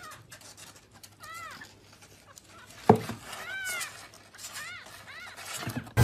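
A kitten mewing, several short high-pitched mews that rise and fall, with a sharp knock about halfway through.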